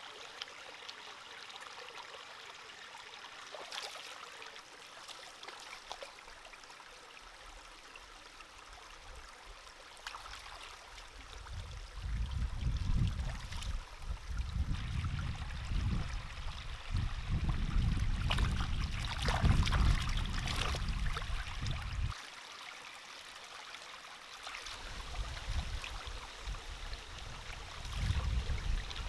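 Shallow stream trickling over rocks, with short splashes and clicks of hands rinsing something in the water. A loud low rumble comes and goes through the second half, cutting off sharply once.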